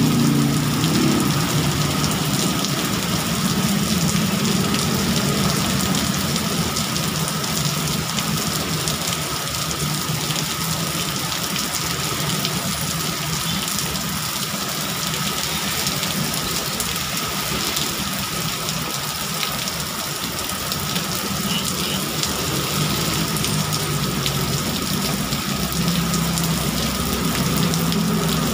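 Heavy tropical rain pouring down onto a street and pavement in a steady downpour, with engines of passing motorbikes and cars on the wet road underneath; the engine rumble is stronger near the start and near the end.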